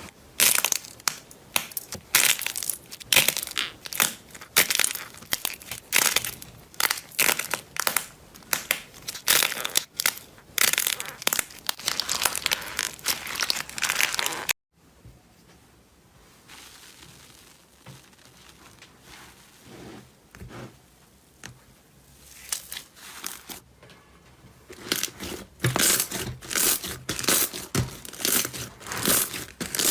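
Crunchy slime being squeezed and pressed, a dense run of crackles and crunches. It cuts off abruptly about halfway through, a quieter stretch of faint soft sounds follows, and the crackling starts again near the end.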